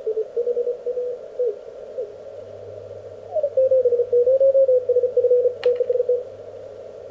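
Morse code (CW) signals heard through the Elecraft K1 transceiver's receiver while its tuning knob is turned: a single keyed tone whose pitch slides as the dial moves onto a stronger station about three seconds in. One sharp click a little past the middle.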